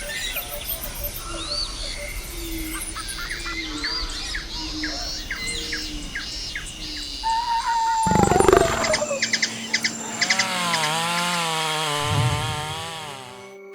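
Tropical rainforest chorus of many birds chirping and whistling. A little past halfway a sudden louder sound comes in with a gliding, falling call, followed by a wavering call repeated several times.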